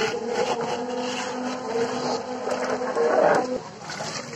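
A perforated metal skimmer scraping and rubbing against a large aluminium karahi of milk, with liquid poured into the pan from a plastic jug near the end.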